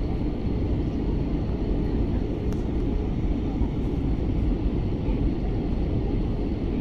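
Steady cabin noise inside an Airbus A320-family airliner in flight: an even, low rumble of engines and airflow.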